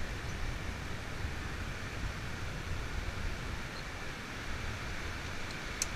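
Wind on the camera's microphone, a steady low rumble, with one sharp click near the end.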